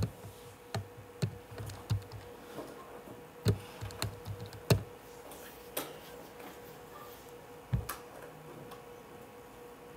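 Keys pressed one at a time at an uneven pace, about ten taps with short pauses between them, as a molar-mass calculation is keyed in. A faint steady hum lies underneath.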